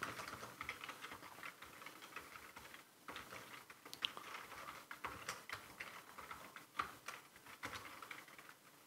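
Faint typing on a computer keyboard: a quick, uneven run of key clicks, with a short pause about three seconds in.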